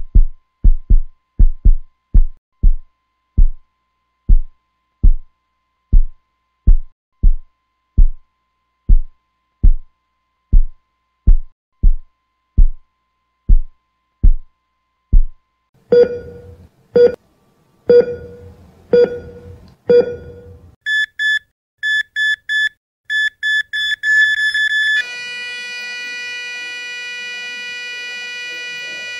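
A heartbeat sound effect: single low thumps, quick at first and slowing to about one a second. They give way to electronic beeps about a second apart, then a quickening run of higher beeps, and about 25 seconds in to one steady unbroken tone, like a heart monitor flatlining as the heart stops.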